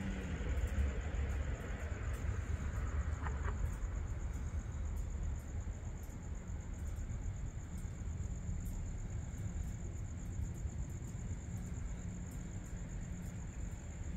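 Crickets trilling steadily in a high, fast-pulsing chorus, over a low rumble.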